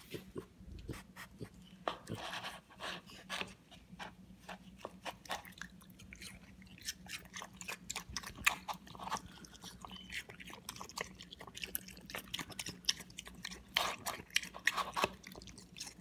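Mini pig chewing watermelon chunks with open-mouthed smacking: a rapid, irregular run of wet clicks and smacks.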